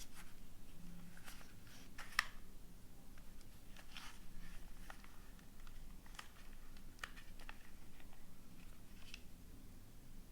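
Scattered light clicks and taps of small objects being handled, with one sharper click a couple of seconds in.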